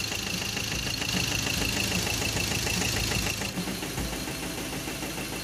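Ford Ranger T6 common-rail diesel engine idling rough and uneven, with a harsh knocking clatter, as if something were striking inside the engine. The mechanic puts the roughness and heavy smoke down to injectors that are most likely still not right after a misfuelling.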